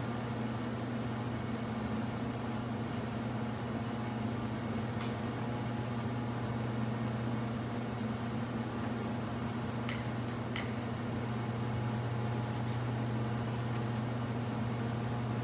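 Steady low hum with a few faint clicks partway through.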